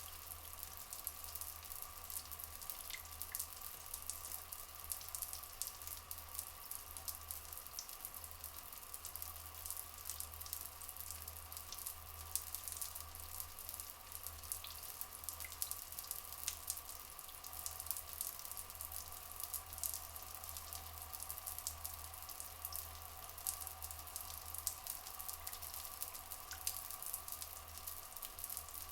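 Steady flowing water with a crackling, dripping hiss, as in rainforest ambience, and a few faint short chirps.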